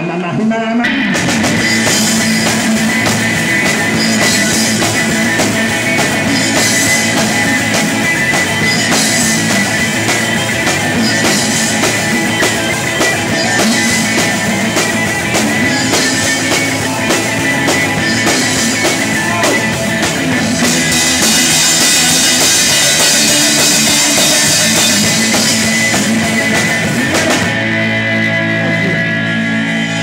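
Live rock band playing, with the drum kit heard close up over electric guitar. The full band comes in about a second in. There is heavy cymbal crashing for several seconds about two-thirds of the way through, and the cymbals drop out shortly before the end while the band plays on.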